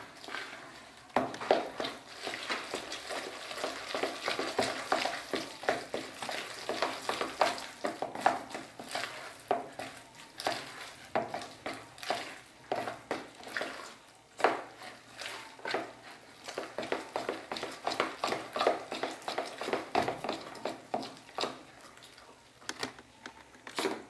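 A metal spoon stirring and beating a thick, wet batter of flour, milk and cooked pumpkin in a plastic bowl, working in milk just added to loosen a stiff dough. It makes irregular wet slaps, scrapes and clicks against the bowl, which ease off near the end.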